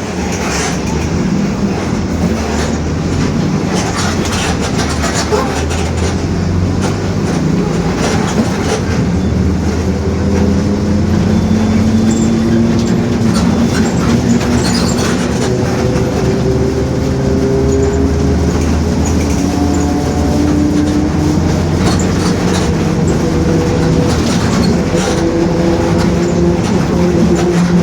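Mercedes-Benz OF-1721 bus running on the road, its diesel engine under load with the differential growling: a thin whine that climbs slowly in pitch through the second half as the bus gathers speed. Short rattles and clicks come through over the drone.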